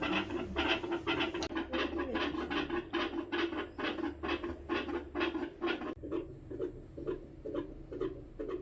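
A dog's heart heard through a stethoscope: a fast, regular run of beats, about three to four a second, growing fainter about six seconds in.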